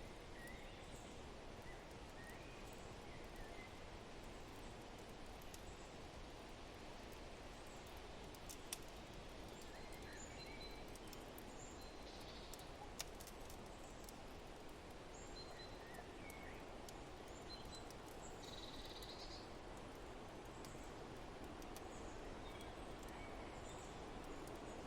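Faint forest ambience: a steady low rush of wind with many short bird chirps scattered throughout. Now and then comes a sharp crackle from a wood fire.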